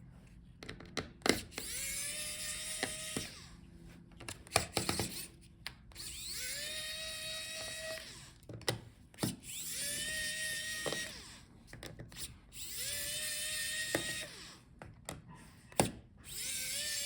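Small electric screwdriver spinning in short runs, each quickly rising to a steady whine and held for one to two seconds, about five times, with small clicks and taps between: screws being backed out to free the laptop battery.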